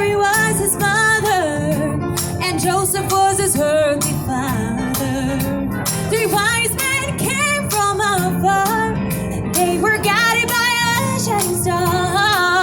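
Singers performing a Christmas song live, with instrumental accompaniment under the voices.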